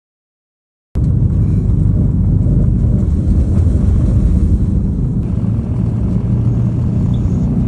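Hurricane Beryl's wind buffeting the microphone: a loud, steady low rumble that starts abruptly about a second in, after a moment of total silence.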